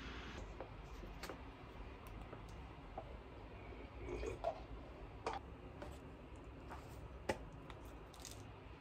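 Faint handling sounds: a small plastic supplement bottle set down on a stone countertop, then scattered light clicks and taps, with a sharper tap about seven seconds in, over a low steady room hum.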